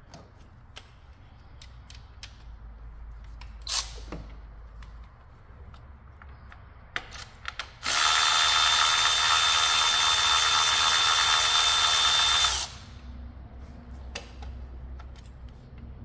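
Handheld power tool motor running steadily for about five seconds, spinning out a fastener on the engine's intake pipes. A few light tool clicks come before it.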